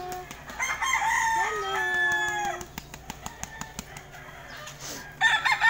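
A rooster crowing once, a long call held about two seconds that drops off at the end, with another crow starting near the end.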